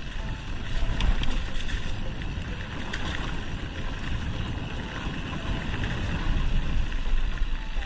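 Mountain bike riding down a dirt trail covered in dry leaves, heard from a camera on the bike: steady wind rumble on the microphone with tyre noise and small rattles from the bike over the bumps.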